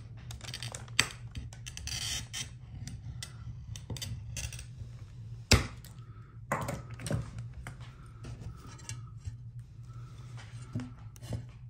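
Glass cutter scoring a sheet of stained glass, a short scratchy hiss about two seconds in, followed by clicks and knocks as the tool and glass are handled on the work table, the loudest a sharp knock about halfway through. A steady low hum runs underneath.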